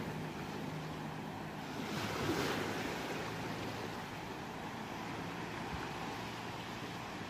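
Ocean surf washing in steadily, with one wave swelling and breaking about two seconds in.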